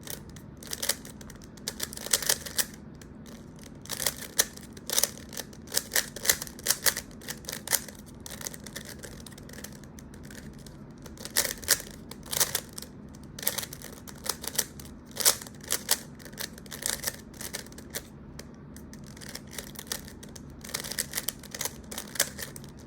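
A 3x3 Rubik's cube being turned rapidly by hand: irregular runs of quick plastic clicks and clacks as its layers rotate, broken by a few short pauses.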